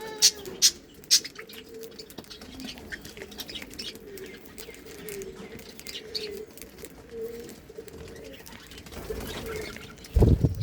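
Budgerigars calling softly and chattering in wavering tones, with a few sharp clicks in the first second. A low thump comes near the end.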